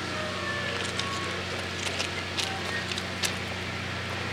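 Yellow Union Pacific cars of a steam-hauled train rolling slowly over the rails: a steady low hum with scattered clicks and brief faint squeals from the wheels.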